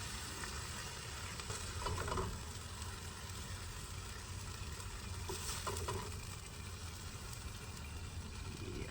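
Cheeseburger patties sizzling on a grill: a steady frying hiss, with a couple of brief faint sounds about two and five and a half seconds in.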